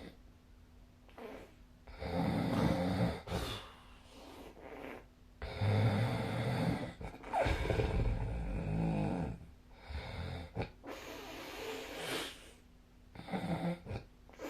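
A sleeping person snoring with a vibrating, fluttering "buru-buru-buru" sound: several snores in a row with quiet pauses between, the loudest in the first half and weaker ones near the end.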